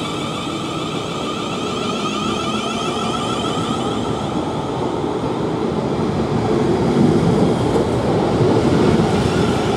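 South Western Railway Class 450 Siemens Desiro electric multiple unit pulling out and running past close by: a steady electric whine over the rumble of wheels on rail. It grows louder in the second half as the train gathers speed.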